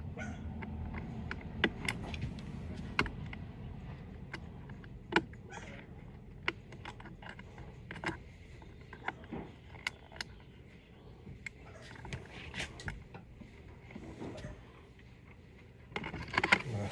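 Irregular light clicks and taps of tools and small parts being handled, over a low steady hum.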